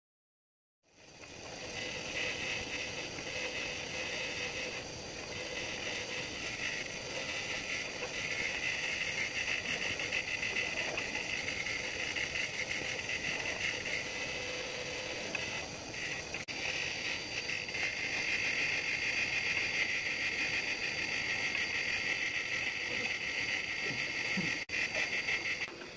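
Bench grinder wheel working the steel cylinder of a pneumatic chipping hammer, cleaning off rust: a steady, high hiss of the wheel on the metal over the constant hum of the motor, starting about a second in.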